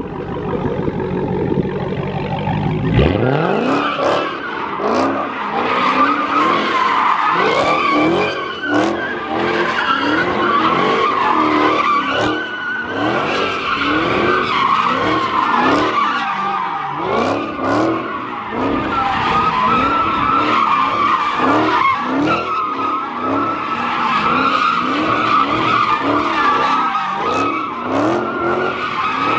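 A V8 muscle car spinning donuts: about three seconds in, the engine goes from a low rumble to hard revving. From then on its pitch sweeps up again and again, roughly once a second, over a continuous tire squeal.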